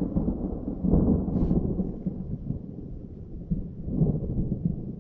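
Thunder rumbling, a low rolling roar that swells and fades, louder about a second in and again near four seconds in.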